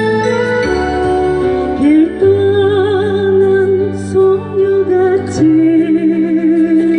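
Slow ballad music: steady held bass notes under a melody line with vibrato that enters about two seconds in.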